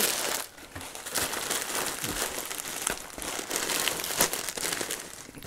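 Clear plastic cereal bag liner crinkling irregularly as it is handled and shaken.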